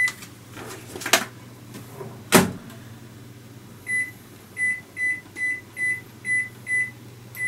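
Microwave oven being worked: two sharp clacks a little after the start, then a run of about eight short, same-pitched beeps, roughly two a second, over a faint steady hum.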